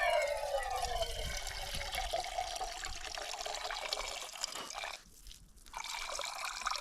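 Water being poured, its pitch sinking over the first couple of seconds. It stops briefly about five seconds in, then starts again.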